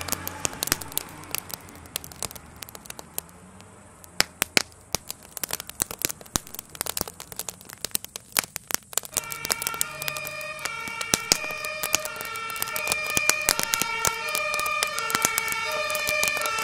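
A burning garden shed cracks and pops in sharp, irregular snaps. An emergency vehicle's siren alternates between pitches; it fades away over the first few seconds and comes back louder from about halfway in.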